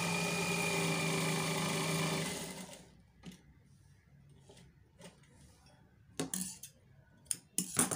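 Electric sewing machine running steadily with a low hum and a high whine, slowing and stopping about two and a half seconds in. After it stops, a few short clicks and rustles as the fabric is handled at the machine.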